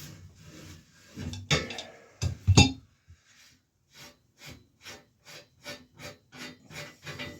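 Metal tool work on a bicycle part being unscrewed: a few loud clanks and rattles, then an even run of short clicks, about two and a half a second, as the loosened part is worked off.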